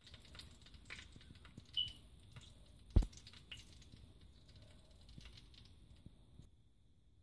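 Faint clicks and rustles of handling, with a brief high squeak near two seconds and one sharp knock about three seconds in.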